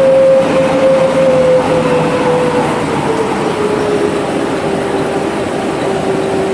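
XY-OQ-7000C automatic dental bib making machine running: a steady mechanical clatter and hum with a clear whine that drops slightly in pitch from about two seconds in.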